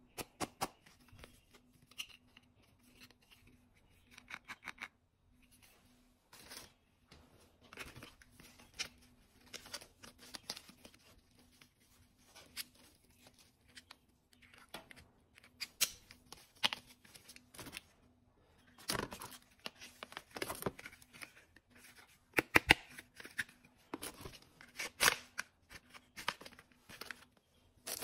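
Hard plastic toy police gear and its packaging handled in a cardboard box: irregular clicks, taps and short rustling and tearing noises, busiest and loudest in the second half.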